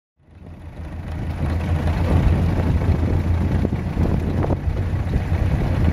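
Vehicle driving on a dirt track, with a steady low engine and road rumble that fades in over the first second or so.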